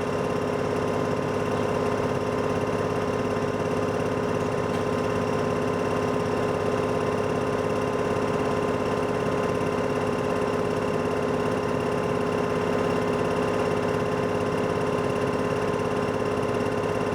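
Wacker Neuson construction machine's diesel engine running steadily at an even speed, with a constant hum.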